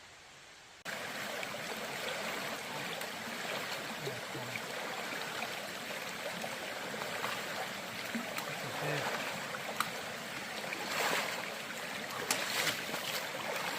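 Flowing stream water, a steady rushing and trickling that starts abruptly about a second in.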